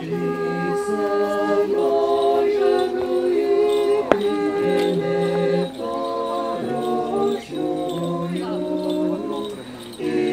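Orthodox church choir singing liturgical chant a cappella in several-part harmony. The chords are held and change together, sung in phrases with short breaks. There is a single sharp click about four seconds in.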